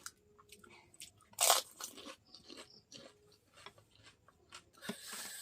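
A person biting into a crisp golgappa (pani puri) shell, one loud crunch about a second and a half in, then smaller crunching and chewing clicks as it is eaten.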